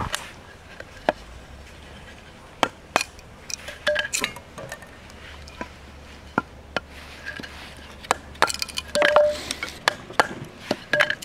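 Sharp, irregularly spaced knocks and clinks of a wooden baton striking the spine of a fixed-blade knife driven into a stick of firewood, splitting it into kindling.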